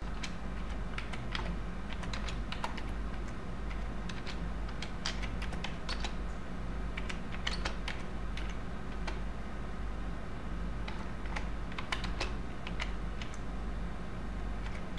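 Typing on a computer keyboard: irregular key clicks with short pauses, over a steady low hum.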